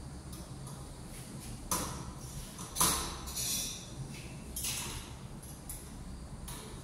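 Metal window grill being pulled across a window frame: a string of metal clicks and light scrapes, the loudest about three seconds in, over a steady low hum.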